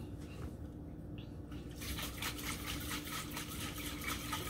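Cocktail shaker being shaken hard, the liquid sloshing inside it in a rapid, continuous rattle that starts about two seconds in.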